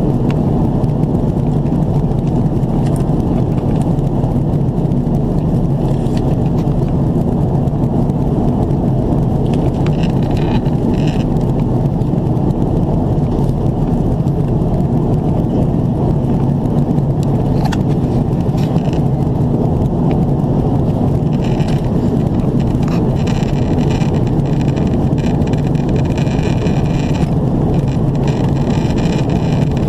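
Steady in-flight cabin noise of an Airbus A330-300 with GE CF6 turbofans in descent: airflow and engine sound heard through the cabin wall, deep and even.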